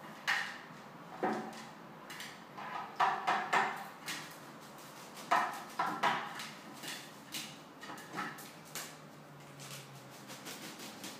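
Hooded crow bathing in a plastic bowl of water, with irregular splashes and flutters and the bowl clattering. The loudest splashes come in the first six seconds, then smaller splashes and drips trail off.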